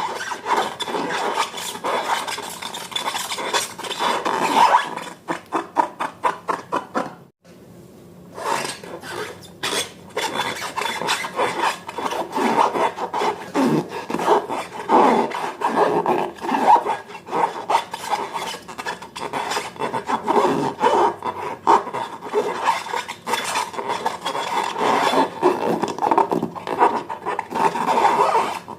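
Slime being worked, a dense run of sticky crackling and rubbing, with a brief break about seven seconds in.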